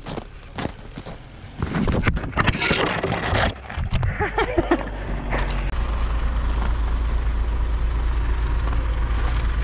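Footsteps on icy snow, then, from about halfway through, a Volkswagen Amarok's TDI diesel engine idling steadily.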